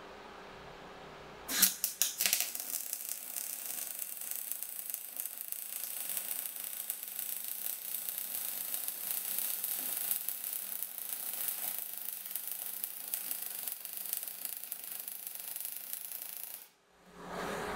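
MIG welding arc from an Everlast Cyclone 262 welder: about a second and a half in, the arc strikes with a few sharp sputters, then burns with a steady crackle for about fifteen seconds and cuts off suddenly near the end.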